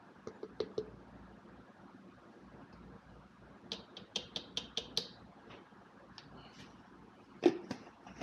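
Light kitchen handling taps and clicks as pea protein powder is added to a plastic blender jar. There are a few soft clicks at first, then a quick run of about seven light taps around four seconds in, and one sharper knock near the end.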